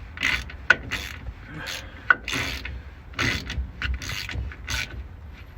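Hand ratchet wrench clicking in short, irregular back-and-forth strokes, running the differential cover bolts down snug but not yet torqued.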